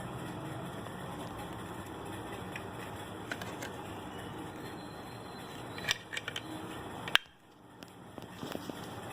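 Scattered metallic clicks and taps as the cut tin casing of a bicycle horn is worked open, over a steady background hiss; the loudest click comes about seven seconds in.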